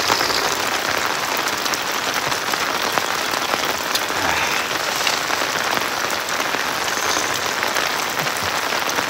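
Heavy rain falling steadily, heard from under a tarp shelter with the rain landing on the tarp and on the lake.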